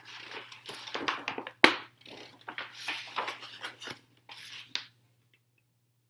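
Pages of a large big book being handled and turned: paper rustling and crinkling for about five seconds, with one sharp paper snap about one and a half seconds in, then it stops.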